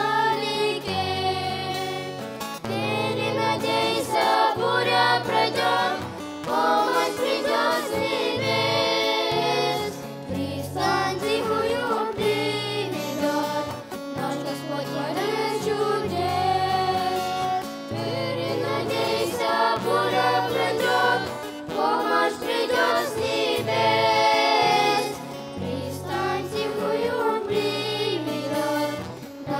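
A group of children singing a song in Russian together, accompanied by strummed acoustic guitar, in phrases of a few seconds each with short breaks between them.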